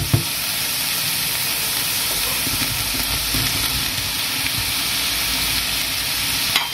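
Chopped vegetables (onion, garlic, carrot, asparagus and bell pepper) sizzling steadily in hot olive oil in a frying pan, with two short knocks at the very start.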